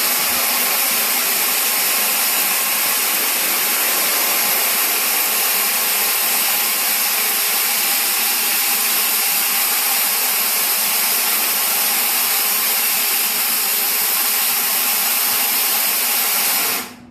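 Walk-behind floor grinder running on a wet terrazzo floor: a loud, steady whirring hiss that cuts off suddenly near the end.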